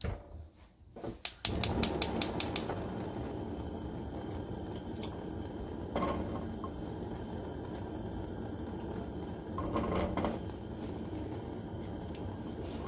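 Gas stove igniter clicking rapidly, about seven clicks a second for just over a second, as the burner lights and then runs with a steady low rush under the frying pan. Asparagus pieces laid into the oiled nonstick pan make two brief louder patches, around six and ten seconds in.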